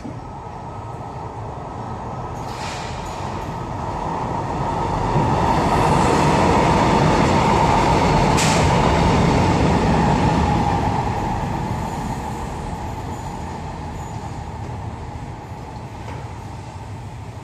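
Taiwan Railways EMU500 electric multiple unit, a set refurbished with Mitsubishi IGBT-VVVF traction control, running through a station without stopping. Its wheel and motor noise builds as it approaches, stays loudest for several seconds as the cars go by, and fades as it runs off. There is one sharp click about midway.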